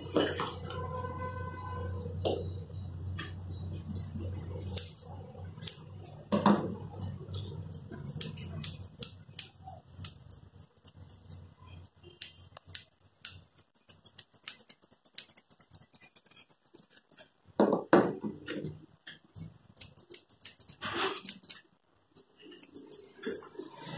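Grooming scissors snipping the fur around a cocker spaniel's paw: runs of small, crisp clicks, thickest in the second half, with a few louder knocks among them.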